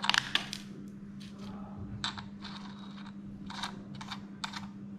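Small plastic clicks and light scrapes as a control stick is screwed into a DJI Mini 2 remote controller: a quick cluster of sharp clicks right at the start, then a few single clicks spread through the rest. A steady low hum runs underneath.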